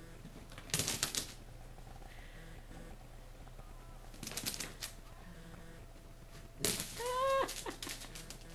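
A dog at play with its toys: three short bursts of rapid clicking and rattling, the last ending in a brief high squeal.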